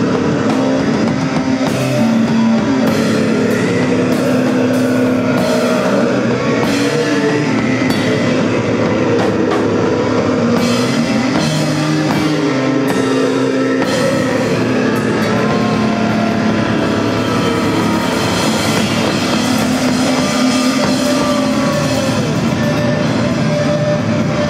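A rock band playing live at full volume: electric guitars, bass and drum kit, with the cymbal strokes thinning out about halfway through.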